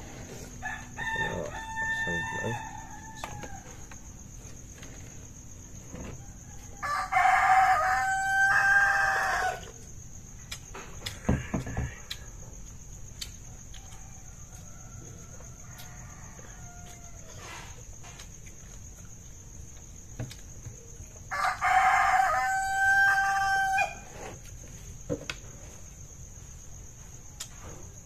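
Rooster crowing twice, loud, each crow lasting about two and a half seconds, with a fainter crow near the start, over a steady high chirring of insects.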